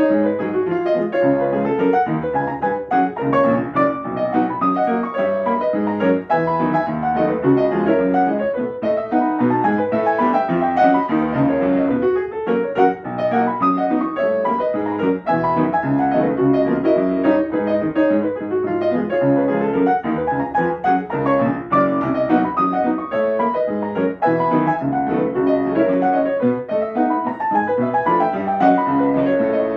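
Yamaha upright piano played solo: a brisk, unbroken run of notes over a steady beat.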